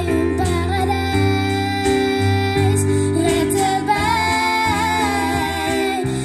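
Music: a song with a singing voice carrying a melody over steady accompaniment.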